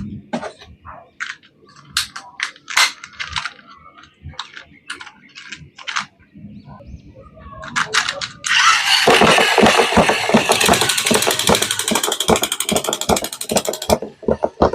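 Scattered sharp clicks and taps of plastic being handled. About eight and a half seconds in, a loud, dense mechanical rattle starts: rapid, evenly spaced ratcheting ticks that last about five seconds and then stop.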